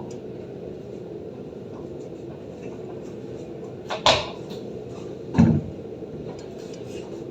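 Steady rainfall with scattered faint drips, broken by two louder knocks about four and five and a half seconds in.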